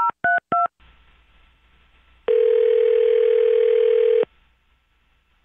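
Telephone keypad tones: three quick two-note dialing beeps finish off the number, then a faint line hiss and, a little after two seconds in, a ringback tone sounds for about two seconds, meaning the called phone is ringing.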